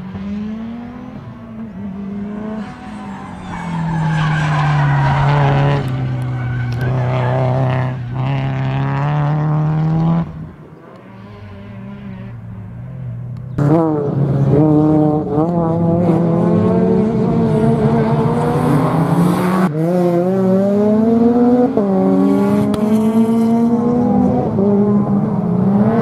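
Subaru Impreza WRX STI rally car's turbocharged flat-four engine revving hard, its pitch climbing and dropping again and again with gear changes and lifts. The sound falls away about ten seconds in and comes back sharply a few seconds later.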